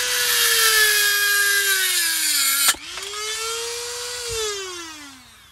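Corded Dremel MultiPro rotary tool spinning a diamond disc in a TungstenMate tungsten-grinder attachment, with a high whine. The pitch sags as a tungsten electrode is pressed into the cutting slot and loads the motor, a sharp click comes about halfway through, and the motor picks back up before winding down when it is switched off.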